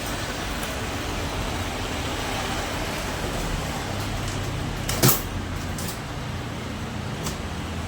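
Steady background noise, with one sharp knock about five seconds in and a few fainter clicks.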